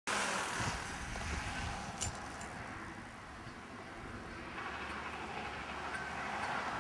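Electric RC helicopter in flight, a rushing rotor noise that eases off and swells again, with a faint steady whine near the end.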